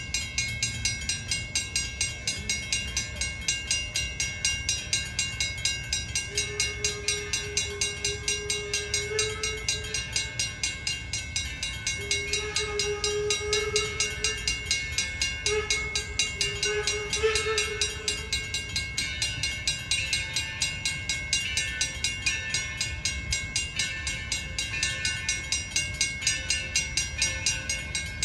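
Steam train hauled by the 0-6-4T tank locomotive Torch Lake running along the line: a steady rhythmic clatter, about two to three beats a second. A wavering tone comes and goes through the middle of it.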